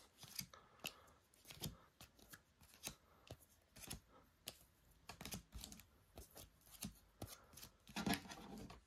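Plastic-sleeved trading cards being handled and flipped through by hand: a scatter of soft plastic clicks and rustles, with a louder rustle a little before the end as the cards are set down.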